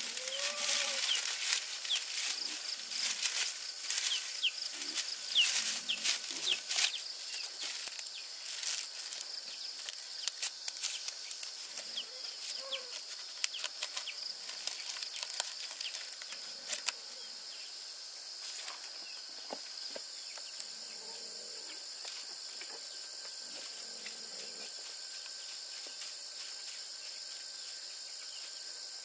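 Irregular clicks, taps and rustling, with a few short chirps, over a steady high insect chorus; the clicking dies away a little past halfway and the insect chorus continues alone.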